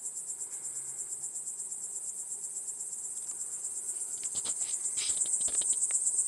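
Crickets trilling: a dense, fast-pulsing high chirr that grows louder near the end. A short cluster of clicks and rustles comes about four to five and a half seconds in.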